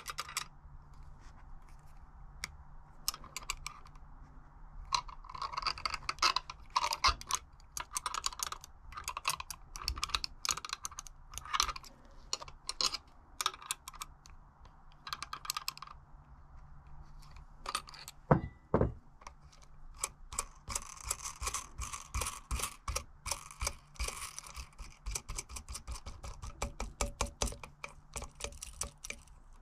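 Rapid, irregular clicking and light tapping of hand tools and small metal parts during bicycle pivot-bearing work, with one louder knock about eighteen seconds in.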